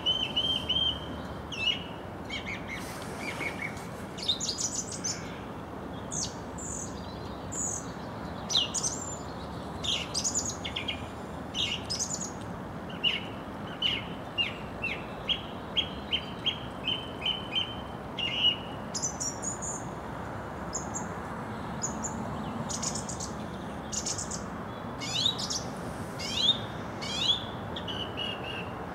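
Common blackbird singing: a string of short phrases and chirps, with a run of quick repeated notes about halfway through, over a steady low hiss.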